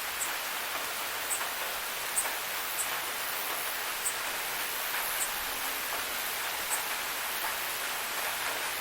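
Steady hiss of falling water from a forest waterfall, with short high-pitched ticks about once a second.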